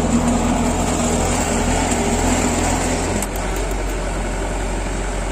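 Kubota ARN 105 combine harvester running steadily. About three seconds in its sound drops slightly and changes.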